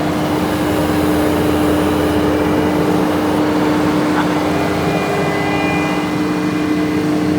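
A John Deere 325G skid steer's diesel engine running steadily under work, with a constant steady whine through it.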